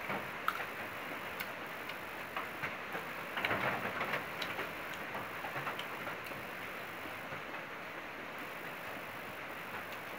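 A person eating and chewing: small wet clicks and smacks scattered over a steady hiss, with a busier run of them about three to four seconds in.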